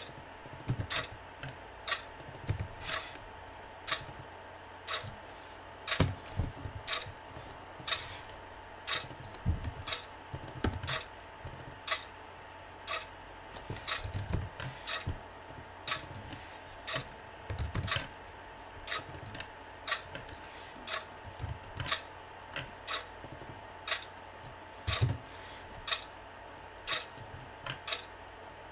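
Computer keyboard typing in irregular runs of keystrokes over a clock ticking steadily about once a second, with a faint steady hum.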